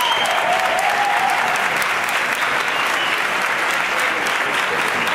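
Concert audience applauding steadily, a dense patter of clapping, with a few cheers rising and falling in pitch in the first second or so.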